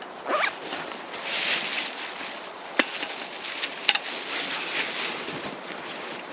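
Rustling of a backpack and outdoor gear being rummaged through and handled, with two sharp clicks a few seconds apart partway through.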